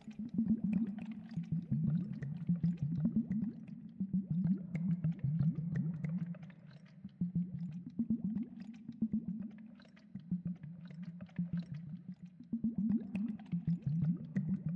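Low gurgling and bubbling of water in quick irregular spurts, fading a little in the middle and picking up again near the end.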